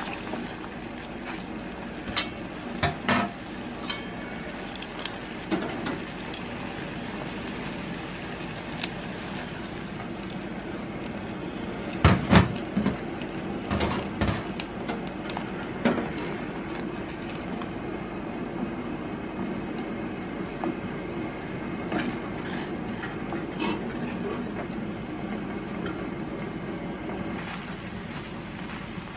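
Water at a rolling boil in a stainless-steel pot, bubbling steadily, with scattered knocks and clinks of a spoon and chopsticks against the pot as it is stirred; the loudest knocks come about twelve to fourteen seconds in.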